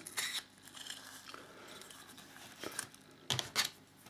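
Soft handling noise from a Victorian wooden sea-fishing reel being put back together by hand: its wooden spool seated on the steel pin and the retaining nut turned on. There are a few light clicks and knocks, the sharpest two a little over three seconds in.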